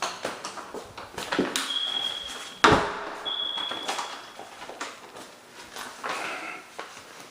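Two steady high-pitched electronic beeps, each about a second long, with a loud heavy thump just before the second one. Scattered knocks and clicks around them.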